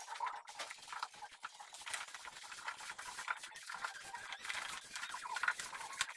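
Hands mixing chopped bananas with rice bran and probiotic liquid in a plastic bucket: a dense, irregular crackle of small rustles and squishes as the feed mash is stirred and worked.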